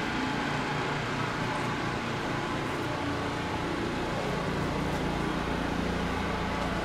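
Steady drone of a vehicle's engine and road noise, even throughout with a low hum.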